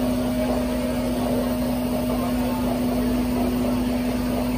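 Fire truck's engine running steadily with a constant droning hum, driving the hydraulics of its raised Palfinger loader crane.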